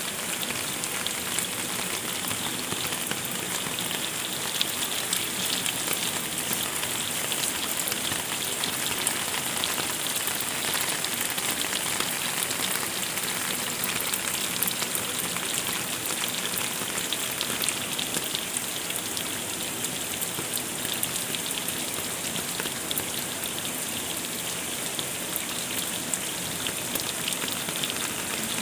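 Heavy rain falling steadily onto a surface, a dense even hiss full of small drop ticks.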